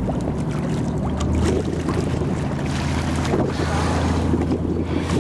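Boat engine running with a steady low hum, mixed with wind on the microphone and the wash of open-sea water.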